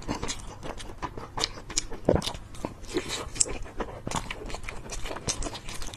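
Close-up chewing and biting of chicken sticks, with irregular crunching crackles throughout and one louder bite about two seconds in.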